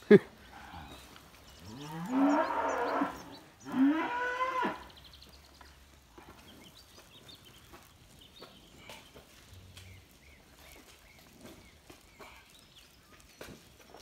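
Cows mooing: two long moos in quick succession, each bending in pitch, after a short sharp click at the very start.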